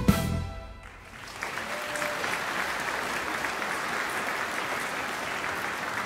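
The band's last chord dies away in the first second, then a concert audience breaks into steady applause.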